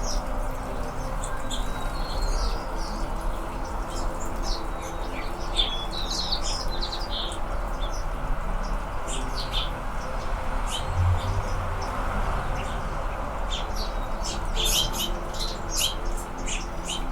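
Anna's hummingbirds giving many short, high chip calls in scattered runs, thickest a few seconds in and again near the end, over a steady low background rumble.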